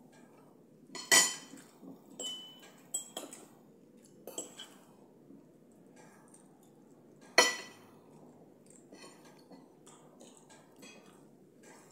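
Metal cutlery clinking against ceramic plates during a meal: two sharp clinks, about a second in and about seven and a half seconds in, with several lighter clinks and taps between them.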